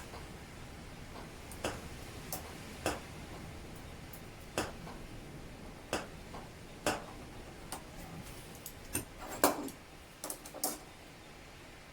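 Irregular light clicks and taps of hand tools and small metal parts being handled, about a dozen spread unevenly, with the loudest one and a quick cluster of taps near the end.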